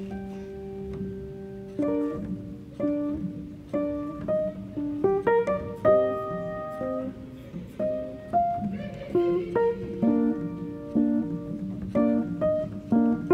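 Instrumental background music: a guitar-like plucked melody, one note held for about two seconds at the start, then a steady run of picked notes.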